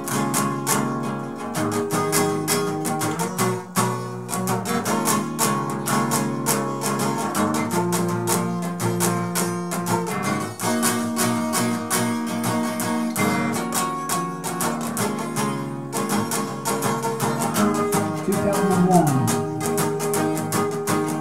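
Acoustic guitar strummed in a steady, busy rhythm, moving through different chords every few seconds.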